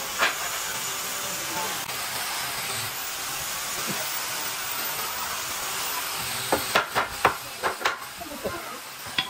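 A wooden rail knocking onto the upright posts of a bed frame as it is fitted and pressed down by hand: one knock near the start, then a quick run of sharp knocks in the second half, over a steady hiss.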